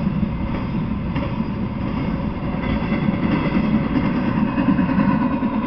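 Intermodal freight train, flatcars loaded with truck trailers, rolling steadily past: the steady noise of steel wheels running on the rails, with a faint thin ring over it.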